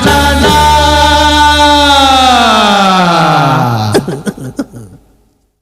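Closing held note of a 1980s Bollywood film song: the sung note and backing slide down in pitch together over about two seconds. They stop with a sharp hit about four seconds in, and a few fading knocks die away into silence.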